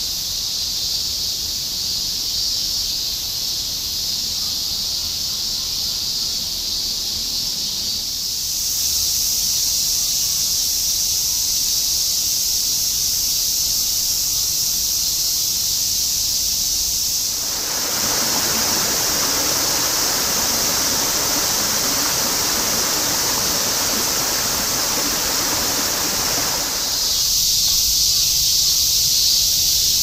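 Dense, continuous chorus of cicadas: a steady, high shrill hiss with no breaks, shifting in character a few times. A little past halfway, a fuller, lower rushing layer joins for about ten seconds.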